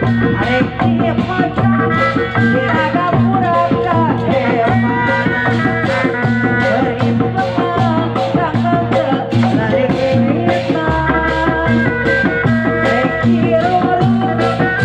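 Live Sundanese bangreng music played loud through a stage sound system: a wavering melodic line over dense, steady drumming and percussion with a bass line beneath.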